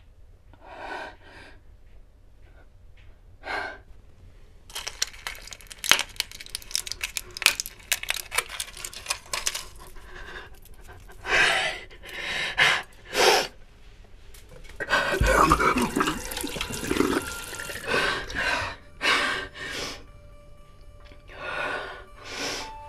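Pills clicking and crackling as they are pressed out of a plastic-and-foil blister pack, among short sharp breaths. A bathroom sink tap then runs for a few seconds as she takes water. Steady music tones come in near the end.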